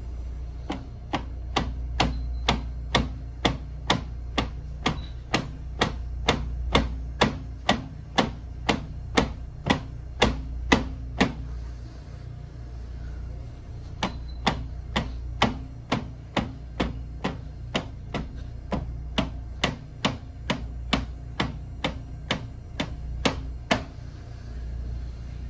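Repeated Kyokushin instep kicks (haisoku geri) striking a wrapped post, sharp strikes at about two a second in two long runs with a short pause near the middle. A low steady hum runs underneath.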